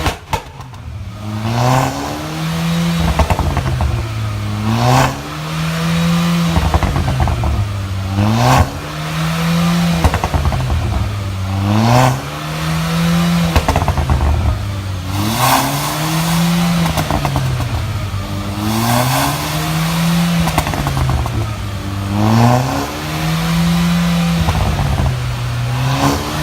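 Mercedes A-Class engine through a valved aftermarket exhaust, revved over and over about every three and a half seconds, the note climbing and falling each time, with sharp exhaust pops once per rev.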